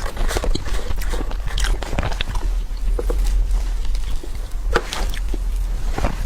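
A person biting and chewing food close to the microphone, with irregular crackly clicks of the bites and chews over a steady low hum.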